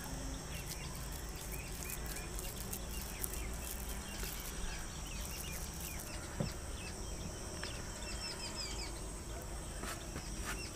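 Birds chirping in short, repeated calls over a steady high background hum, with a soft knock about six seconds in.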